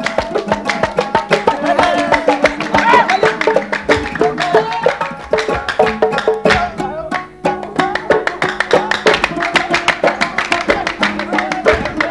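Kuwaiti sawt music: a dense, even beat of hand drums and hand-clapping under a melodic line. The music thins briefly about seven seconds in.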